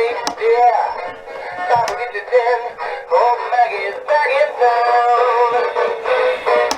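Battery-powered animatronic singing fish toy playing its song, a synthetic-sounding sung melody through a small built-in speaker, thin and tinny with no bass.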